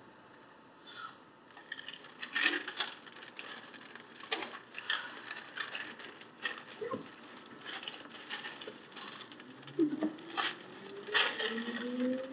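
Seibu 2000 series electric train standing still, with scattered clicks and rustles. About ten seconds in it pulls away, and its traction motors give a whine that rises steadily in pitch as the train gathers speed.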